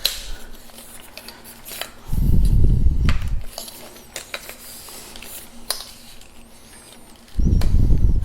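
Plastic leg-lock levers and aluminium leg sections of a lightweight tripod being fiddled with, giving scattered sharp clicks and rattles. Two bursts of deep rumble from handling, about two seconds in and again near the end, are the loudest sounds.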